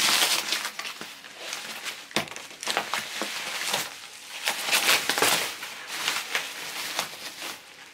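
Bubble wrap and plastic packing crinkling and rustling in irregular bursts as a cardboard shipping box is handled and pulled free of it, with a soft knock about two seconds in.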